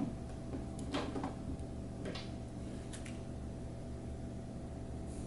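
A few light clicks as a screwdriver turns cam locks to tighten them in the particleboard panels of a cube organizer, over a low steady hum.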